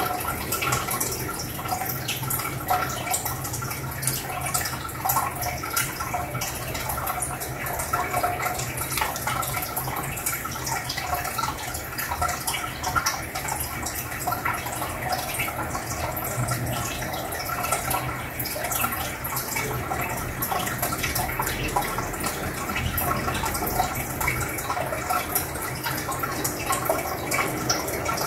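Aquarium sponge filter bubbling: a steady stream of air bubbles rising and breaking at the water surface, a continuous crackling, splashing trickle, with a low steady hum underneath.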